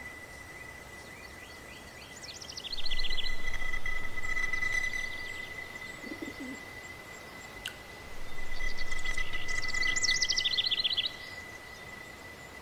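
Songbirds singing in two bursts of fast, rapidly repeated trills, about two seconds in and again from about eight to eleven seconds, over a steady high thin tone. A brief low coo comes about six seconds in.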